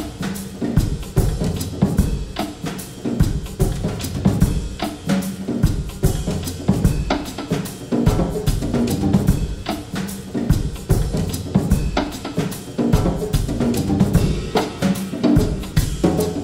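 Background music with a steady beat played on a drum kit: kick, snare and cymbals over a bass line.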